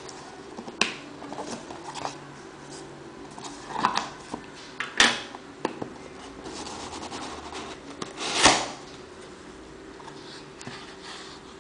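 A cardboard box being handled and opened: plastic wrap and packing tape rustling, with scattered taps, clicks and scrapes of cardboard. About eight and a half seconds in comes the loudest sound, a short scraping rustle.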